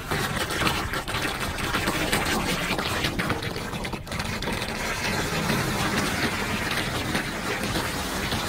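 Floodwater rushing down a clogged-then-cleared street storm drain in a whirlpool, a steady noisy wash of draining water. It dips briefly about four seconds in.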